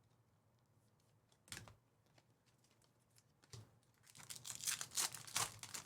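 Foil trading-card pack wrapper being torn open and crinkled by hand: a faint rustle or two, then a denser stretch of crinkling about four seconds in.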